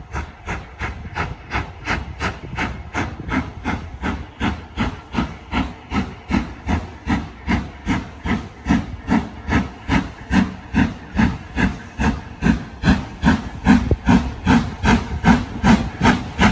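Two steam locomotives, LMS Black 5 No. 45407 leading LNER K1 No. 62005, approaching under steam with a steady chuff of exhaust beats about three a second, getting louder as they near.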